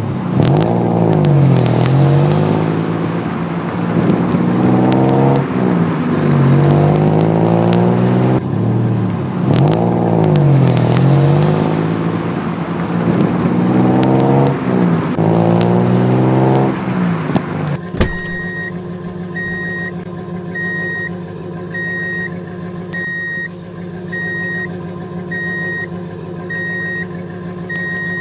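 Vehicle siren wailing, its pitch sweeping up and down over and over, cut off abruptly about eighteen seconds in. A steady engine hum follows, with a short high beep about once a second, like a truck's reversing alarm.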